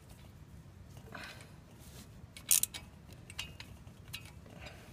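A few short metallic clicks and a soft scrape from a spark plug socket and extension being worked by hand deep in the engine bay, threading a spark plug into the cylinder head of a Ford 302 V8.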